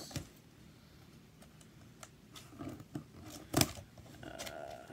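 Cardboard shipping box being handled and pried at by hand while opening it: scattered light taps and scrapes, with one sharper knock about three and a half seconds in.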